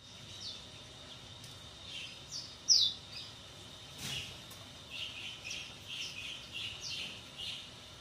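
Caged blackthroat × Mozambique canary hybrids chirping: scattered short high chirps, one louder falling chirp about a third of the way in, then a quick run of about three chirps a second near the end.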